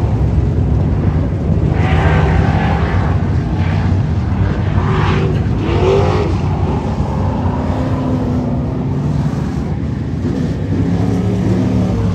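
Street stock race car engines running around a dirt oval, several cars droning at once, with louder spells as cars come by.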